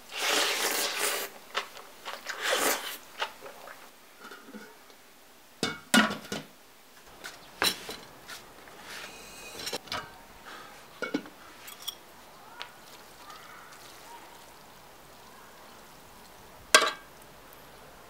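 Wet squishing of sauced cold noodles being mixed by hand in a stainless steel pot, loudest at the start. It is followed by scattered clinks and knocks of the steel pot, its lid and dishes, with one sharp clink near the end as the loudest sound.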